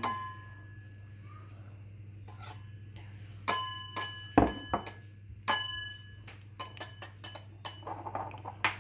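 Metal spoon clinking against a glass tumbler several times while spooning in crushed biscuit crumbs, each clink ringing briefly, with a duller knock on the tabletop about four and a half seconds in.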